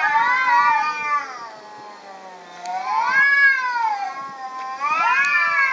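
Two tomcats yowling at each other in a territorial standoff: long drawn-out wails that rise and fall in pitch, overlapping at first, easing off briefly about two seconds in, then swelling again twice.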